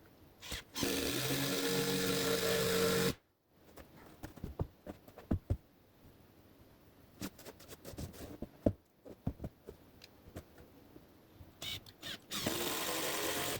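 Power driver driving screws into thick wooden deck boards: two runs of steady motor whine, about two seconds long early on and a shorter one near the end, with scattered knocks and clicks in between.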